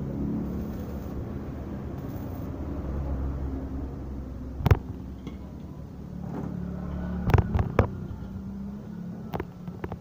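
Low steady hum of an arc welding machine, with a sharp knock about halfway through, a quick run of three knocks a little later and two more near the end.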